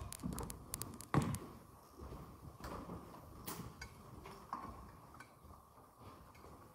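Scattered clicks and knocks as musicians move about and handle their equipment, with one louder knock about a second in, over a faint steady tone.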